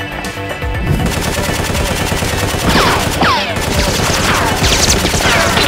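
Sustained rapid automatic gunfire sound effects, a dense run of shots. From about two and a half seconds in, a series of short falling whistles sounds over the shots.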